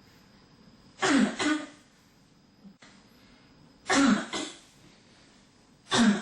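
A person coughing in three bouts about every two to three seconds, each bout two quick coughs in a row, the last starting near the end.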